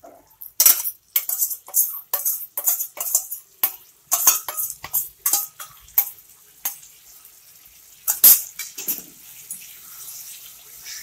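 Metal spatula scraping and clinking against a metal kadai while stirring chicken in thick sauce: quick strokes about two a second for the first six seconds or so, then a pause and one loud knock.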